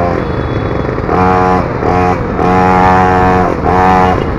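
Small 50 cc mini motorbike engine running under the rider, its revs rising and falling in short bursts of throttle, with about five spells of held revs.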